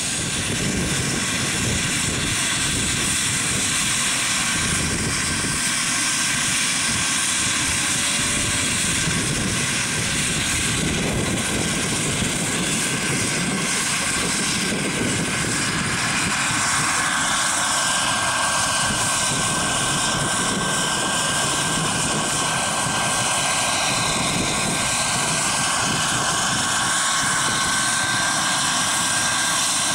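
Radio-controlled Vario Jet Ranger XL model helicopter's JetCat turbine running with a steady high whine, together with the noise of its spinning main and tail rotors as it lifts off and hovers low. The whine's pitch shifts slightly upward about halfway through.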